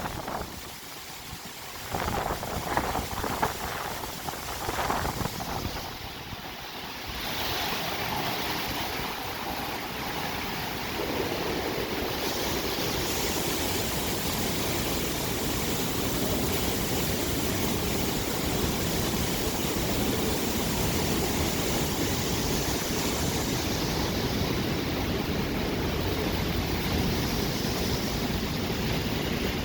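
Hurricane wind and rain, a dense, steady rush of noise. It comes in uneven gusts for the first few seconds, then settles into a constant roar-like wash from about seven seconds in.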